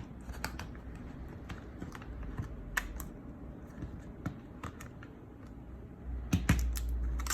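Irregular small clicks and taps of a scan tool tablet's plastic housing and parts being handled and fitted back together, with a few sharper clicks near the middle and near the end.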